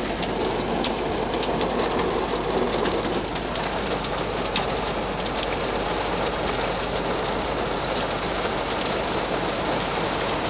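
Heavy thunderstorm rain pelting a vehicle's roof and windshield, heard from inside the cabin: a dense, steady hiss of a downpour with many sharp individual hits.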